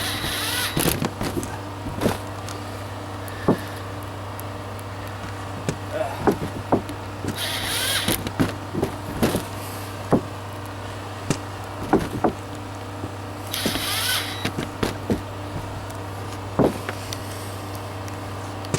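Cordless drill whirring in three short bursts, backing out screws, among scattered knocks and clicks of handling tools and screws. Underneath is the steady low hum of the air conditioner running off a generator.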